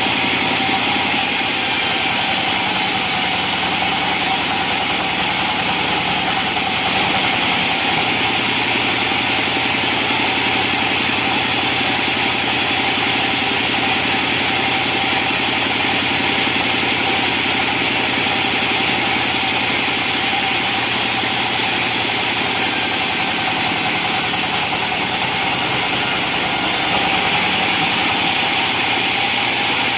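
Band sawmill machinery running steadily, a constant drone with a steady whine held throughout.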